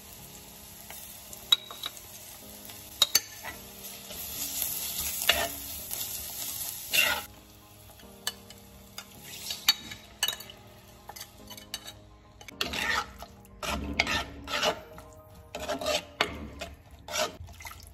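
Chilli masala paste sizzling in hot oil as it is scraped into a pan of fried onion, ginger and garlic, then a metal spoon scraping and stirring it in short strokes. This is the masala being sautéed on a low flame until its raw smell goes.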